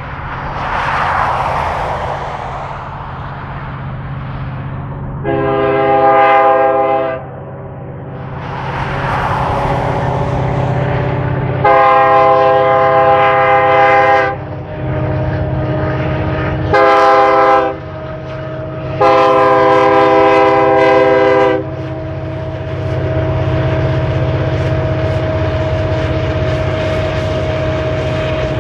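Diesel freight locomotive's air horn sounding the grade-crossing signal: two long blasts, a short one, then a long one, over the steady rumble of the locomotive engines.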